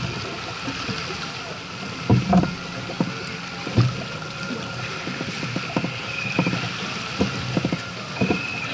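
Steady rush of water and wind along the hull of a sailing yacht heeled under sail, with a few irregular dull knocks through it.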